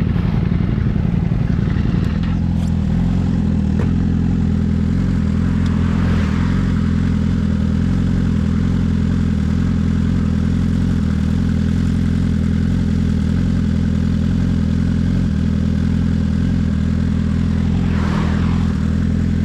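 Sportbike engine running loud at a steady, unchanging speed, with two brief rushes of noise, one about six seconds in and one near the end.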